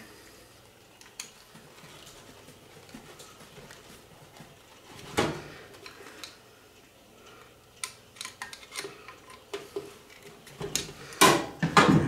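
Hand screwdriver tightening screws on the small flame-effect motor of an electric fireplace, with faint scraping and clicking of metal parts. There is a single louder knock about five seconds in, and a run of metal clinks and clatter near the end.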